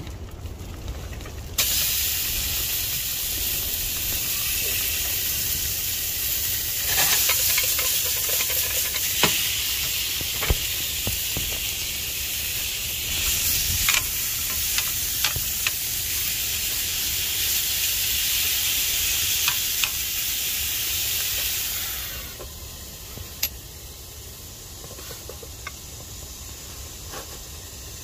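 Diced beef sizzling as it sears in a hot double-sided pan on a wood-burning stove top, with a loud steady hiss that starts suddenly as the meat goes in and dies down near the end. A utensil stirring the meat knocks against the pan now and then.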